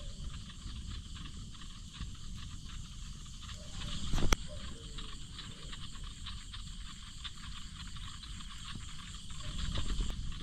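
Steady chorus of insects and frogs chirring in layered high bands over a low rumbling noise, with one sharp knock about four seconds in.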